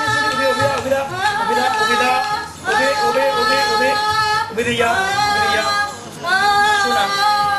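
A woman's voice singing in long held notes. Each phrase glides up into a sustained, wavering pitch, and there are three phrases with short breaks between them.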